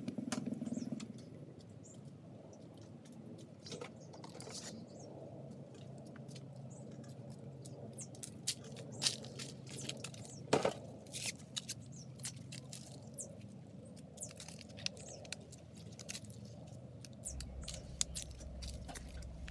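Liquid pouring into a steel wok for about the first second, then scattered light clicks and rustles over a low steady hum, with one sharper click about halfway through.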